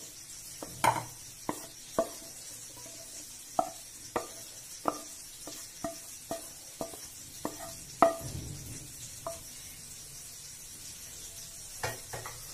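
Wooden spatula knocking and scraping against a non-stick frying pan and a bowl as sautéed vegetables are pushed out of the pan: a string of irregular sharp taps, some with a short ring, loudest about a second in and about eight seconds in, then a pause and a few more taps near the end.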